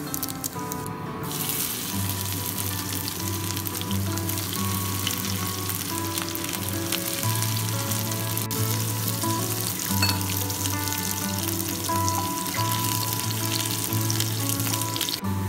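Cumin seeds, garlic and green chillies sizzling in hot oil in a wok as they are tempered. The sizzle breaks off briefly about a second in, then carries on.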